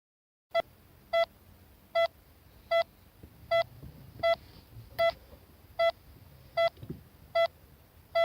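Hospital heart monitor (ECG) beeping: short, high, even beeps about every 0.8 seconds, each marking one heartbeat at a steady rate.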